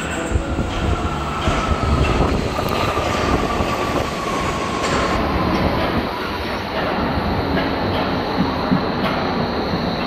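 Vehicle in motion: a steady rumble and rushing noise, with a thin whine that slowly falls in pitch over the first five seconds and scattered light clicks.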